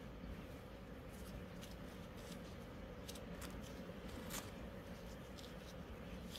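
Faint rustling and short light scratches from gloved hands handling and rubbing small pieces of net fabric, a few scattered scratches over a steady low background hum.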